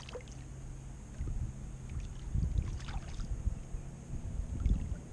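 Water slapping against a kayak hull with wind on the microphone, an uneven low rumble that surges about a second in, around two and a half seconds and near the end, with a few faint clicks around three seconds in.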